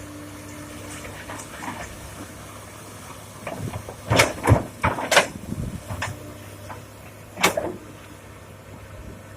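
Komatsu PC 200-6 excavator engine running steadily while rocks are dumped into a dump truck bed: a burst of loud crashing impacts a few seconds in, then one more heavy hit about two seconds later.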